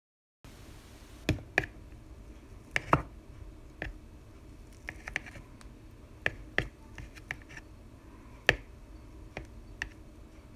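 A knife cutting a no-bake cheesecake into slices, with about a dozen sharp clicks and taps at irregular intervals as the blade is pressed down and lifted.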